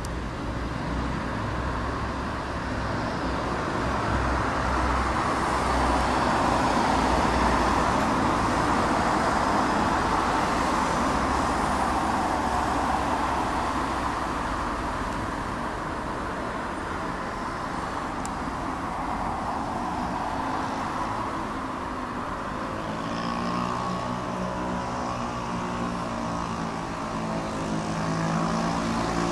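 A steady, distant rumble of engine noise that swells a few seconds in and eases after the middle. Near the end a smoother hum passes through.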